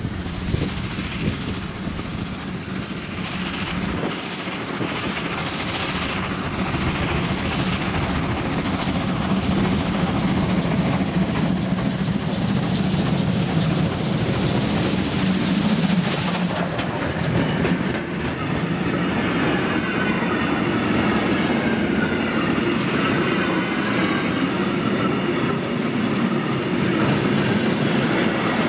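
Steam locomotive hauling a freight train: its exhaust beats grow louder as it approaches and passes about sixteen seconds in, with a brief hiss. The wagons then roll by, wheels clattering steadily over the rails.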